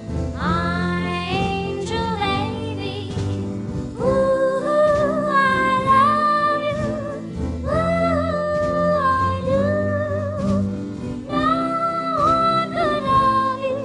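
A 1960 doo-wop ballad record: a woman's lead voice sings long held notes, sliding up into each new phrase, over a slow band backing with steady bass.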